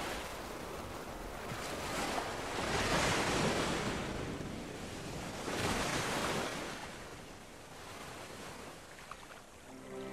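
Sea surf washing onto a beach, swelling and fading in surges about three seconds apart.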